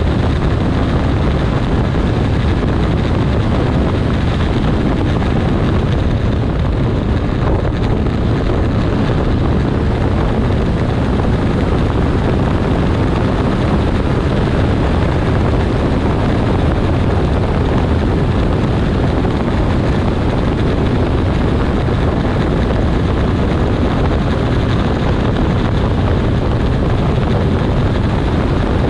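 Kawasaki 1400 Concours motorcycle cruising at a steady speed: wind rushing over the microphone, mixed with the inline-four engine running and tyre noise on the road, with no change in speed.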